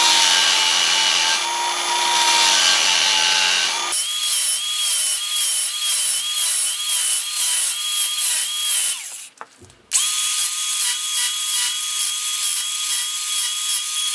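Angle grinder cutting detail notches into a square steel bar. Its whine wavers about twice a second as the disc is worked into the cuts. It stops just over nine seconds in and starts up again under a second later.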